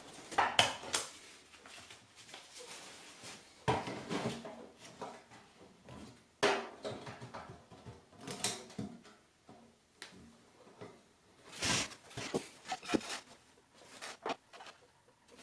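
Handling noises: scattered short knocks, clicks and clatters with quieter rustling between, as a metal pedal bin with its lid and a plastic contour gauge are moved and pressed into place.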